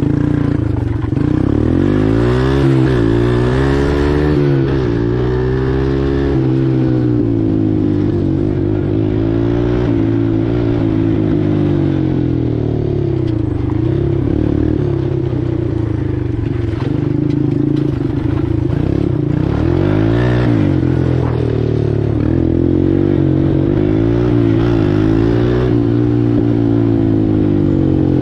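Four-wheeler (ATV) engine under way, its pitch rising and falling again and again as the throttle opens and eases.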